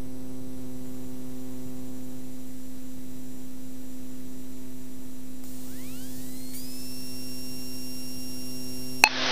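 A steady low hum made of several fixed tones. About six seconds in, a whine rises in pitch and holds a steady high note: the King Air B100's electrically driven air-conditioning compressor spinning up.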